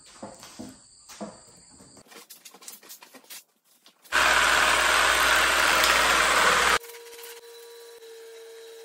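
An aerosol solvent can spraying in a loud steady hiss for about two and a half seconds, starting and stopping abruptly, onto the aluminium roof panel to strip leftover decal glue. Faint clicks and rubbing come before it, and a faint steady hum follows.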